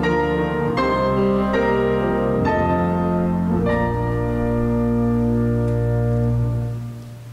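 Organ music closing a piece: a few chord changes, then a final chord held steady for about three seconds that is released near the end.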